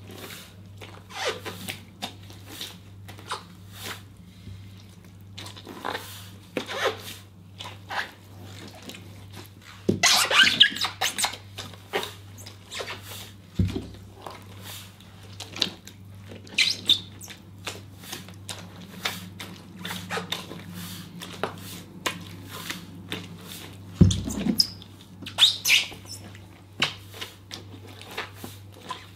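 Rubber wellington boots treading on green grapes in a plastic tub: irregular wet squishes and squelches as the pulp is crushed underfoot, with a couple of heavier thumps where a boot stamps down. A steady low hum runs underneath.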